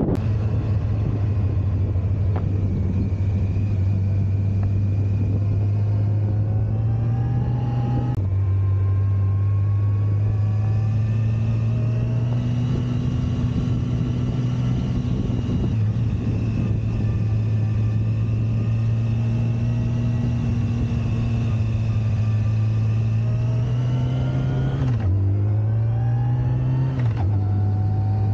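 Motorcycle engine running at cruising speed with wind rush, its pitch drifting slowly up and down. Near the end the revs drop sharply twice and climb again as the bike shifts up through the gears under acceleration.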